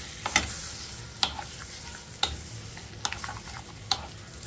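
Spatula stirring grated raw mango pickle through hot tempering oil in a pan. The oil sizzles with a steady hiss, and the spatula scrapes and knocks against the pan about once a second.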